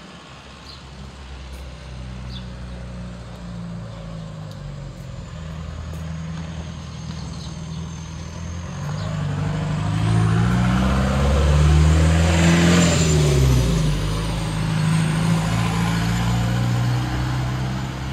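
Road traffic: engine noise builds up, and a motor vehicle passes close about twelve seconds in. Its engine note drops as it goes by.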